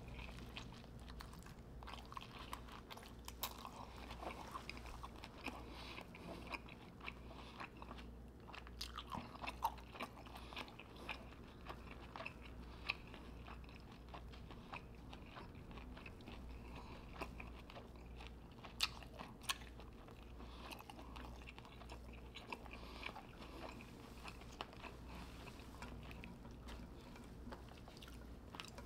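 Close-miked chewing and biting of sauce-covered seafood boil food: wet mouth noises with many small clicks and crunches. A steady low hum runs underneath.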